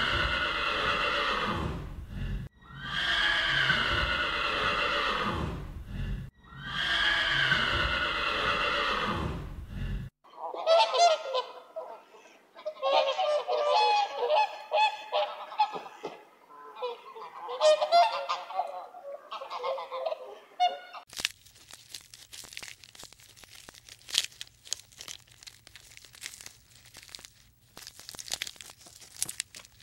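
Animal calls: three long calls of about two and a half seconds each, then about ten seconds of quick, clustered short calls, then faint scattered clicking over a low hum.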